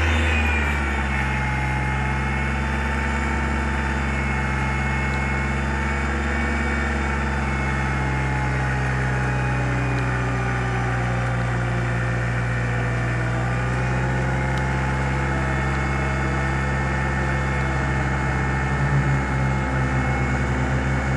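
Paragliding tow winch engine running steadily, hauling in the tow line under load as a tandem paraglider climbs; its pitch drifts a little.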